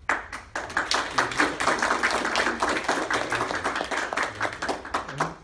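Audience applauding: many overlapping hand claps that start suddenly and thin out to a few scattered claps near the end.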